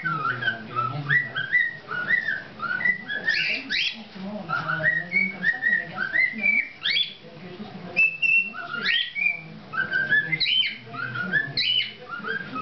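Male cockatiel whistling its song: a continuous run of short whistled notes that rise and fall, in repeated phrases, with a few sharper high notes.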